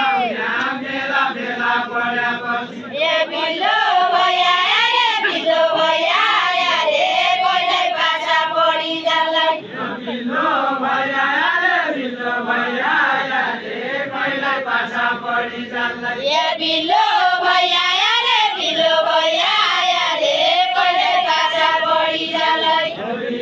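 Deuda folk song sung by a group of men in chorus, without instruments, in repeated chant-like phrases with short breaks between them.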